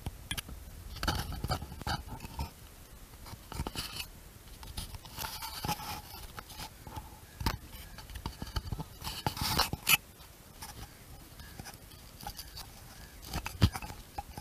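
Handling noise on a boat-mounted action camera: irregular clicks, knocks and crackling as it is jostled. The louder knocks cluster about ten seconds in, with one sharp knock near the end.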